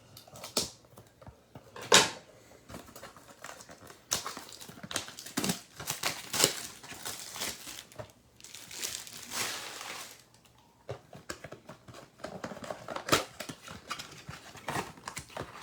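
Plastic shrink-wrap crinkling and tearing and cardboard being handled as a sealed box of trading-card packs is opened, with irregular rustles and a sharp knock about two seconds in.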